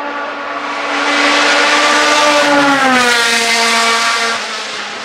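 Open-cockpit race car's engine at high revs, growing loud as it comes up the hill and passes close by. Its pitch drops and the sound fades from about three seconds in as the car goes away.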